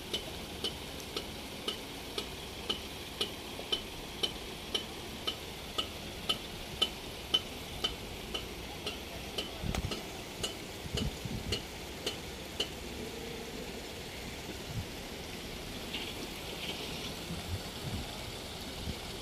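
Regular ticking, about two ticks a second, each with a short high ring; it stops about two-thirds of the way through. A steady hiss runs underneath.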